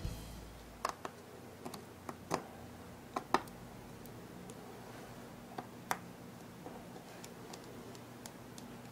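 Faint, scattered light clicks and ticks of small hand tools on an iPhone 4's tiny internal screws and parts, as a screw is being taken out. The clicks come in small clusters, most of them in the first few seconds and a couple more midway.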